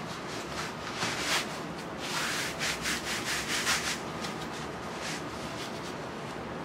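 Element 26 6mm neoprene knee sleeve being pulled up the leg and over the knee, rubbing and scraping against skin and hands in short strokes: one or two about a second in, then a quick run of them between about two and four seconds in.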